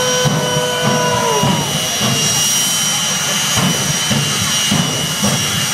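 Jet engines of a jet-powered locomotive running steadily, a constant roar with a steady high whine above it. A voice holds a long cheer over the roar until about a second and a half in.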